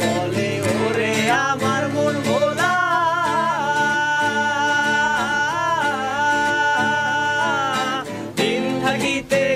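A male singer sings a slow Bengali song line over guitar accompaniment, holding one long wavering note through the middle, followed by a brief pause near the end.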